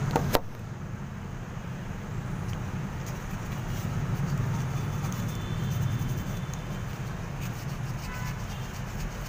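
Steady low hum with a single sharp click just after the start.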